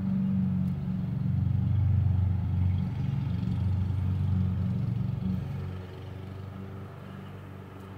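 A loud, low, steady hum of several tones that weakens and fades about six seconds in.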